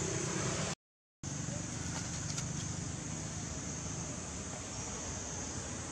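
Steady outdoor background noise, an even hiss over a low rumble, cut by a half-second dropout to dead silence about a second in.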